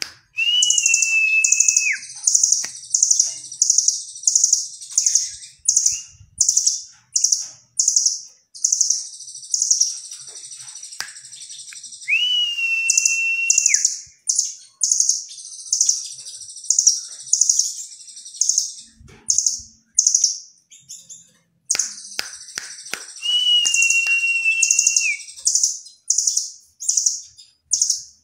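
Caged blue nuthatch (rambatan doraemon) singing in full voice: long runs of rapid, high chips, broken three times by a held whistle about a second and a half long. Its song carries fill-in phrases resembling a cililin.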